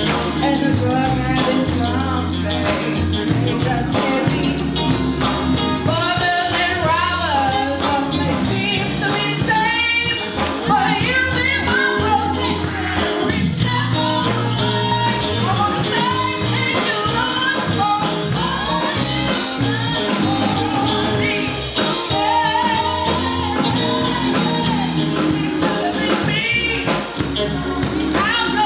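A woman sings a gospel song lead into a microphone over a live band: drum kit, electric bass and electric guitar.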